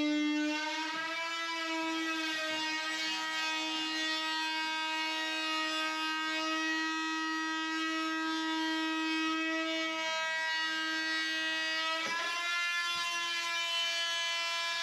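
Background music: a long held instrumental note, steady in pitch, that slides briefly about a second in and again near the end.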